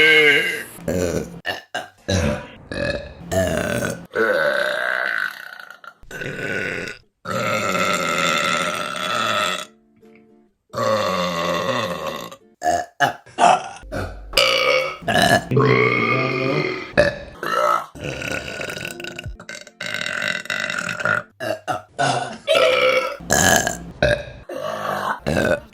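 Women burping, one burp after another: many short belches and a few long drawn-out ones, with abrupt cuts between them.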